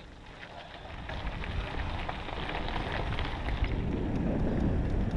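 Mountain bike tyres rolling over a gravel path, with wind rumbling on the helmet-mounted camera's microphone. The sound grows steadily louder from about a second in as the bike gets moving.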